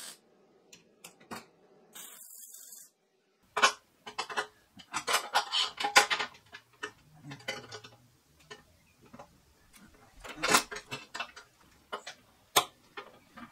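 A brief hiss of a MIG tack weld about two seconds in. Then a bent steel-rod grill frame and metal locking clamps clank and knock irregularly against a steel firepit tray as the frame is set in place and clamped.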